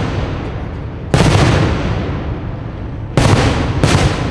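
Aerial firework shells bursting: three sharp booms, one about a second in and two close together near the end, each trailing off in a rolling echo.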